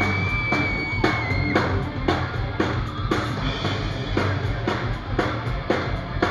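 Live heavy metal band playing an instrumental passage: distorted electric guitars, bass and drum kit, with drum hits about twice a second. A long, high note is held through the first second and a half and drops at its end.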